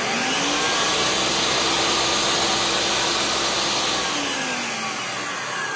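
Electric food processor running loudly, chopping canned whole peeled tomatoes; its motor tone drops in pitch about four seconds in.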